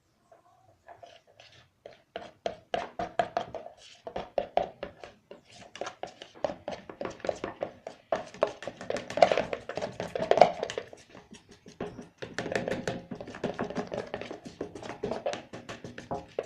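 Spoons stirring clear glue and water in containers to make slime, knocking and scraping against the sides in rapid, irregular clicks and taps.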